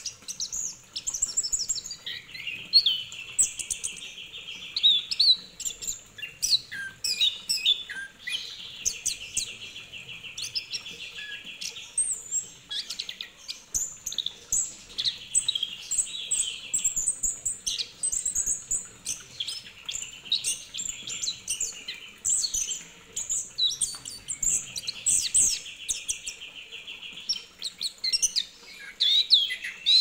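Chestnut-capped thrush singing continuously: a varied stream of sharp whistled and chattering notes, broken several times by rapid buzzy trills lasting a second or two each.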